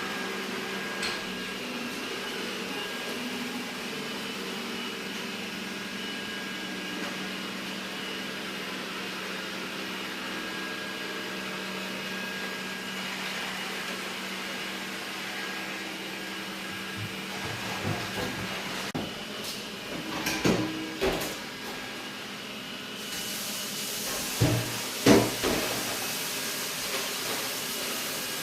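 Xiaomi robot vacuum running with a steady whirring hum, a few fixed tones riding on it. In the second half several short, louder sounds break in over the hum.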